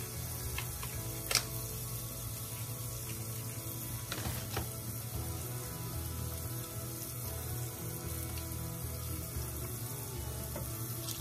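Minced garlic frying in hot oil in a stainless steel saucepan, a steady sizzle. A couple of light clicks come about one and a half and four and a half seconds in.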